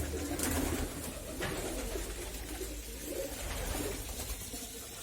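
Domestic pigeons cooing, low-pitched coos over a steady low rumble, with a couple of brief clicks in the first second or so.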